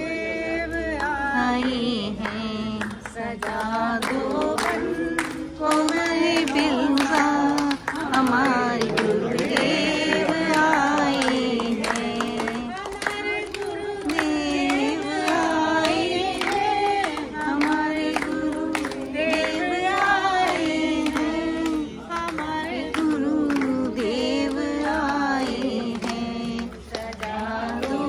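A group of women singing a song together in unison, clapping in time along with it.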